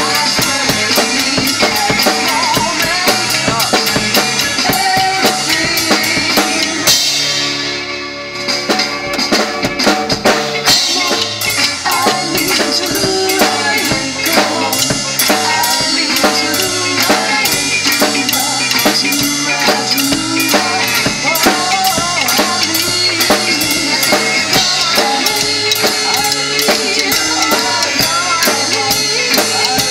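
Drum kit playing a steady rock beat of kick, snare and cymbals along with a recorded band song. About seven seconds in the music thins out for a moment, then the full beat comes back.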